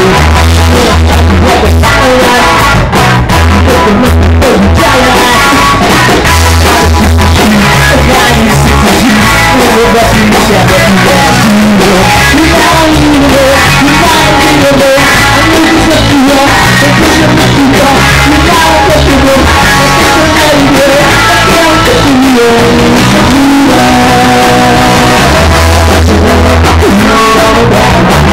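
Live rock band playing loudly: a singer's voice over electric guitars, bass notes and a drum kit.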